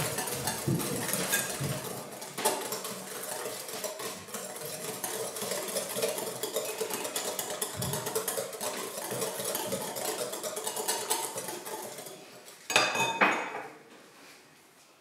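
Wire balloon whisk beating eggs and sugar in a glass mixing bowl: a quick, steady rattle of metal wires scraping and clicking against the glass. Near the end comes a brief louder clatter of the whisk against the bowl, then the whisking stops.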